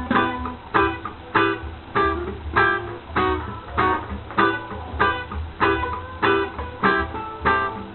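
Instrumental music: an acoustic guitar strums short chords in a steady rhythm, about one stroke every 0.6 seconds, over a low bass line.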